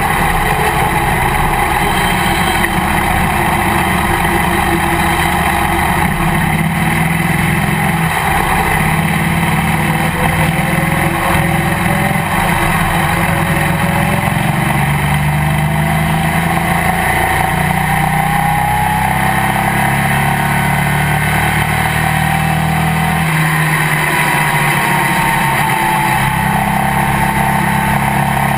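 Legends race car's motorcycle-derived engine heard from inside the cockpit, running continuously at speed, with its pitch slowly rising and falling through the laps, over road and wind noise.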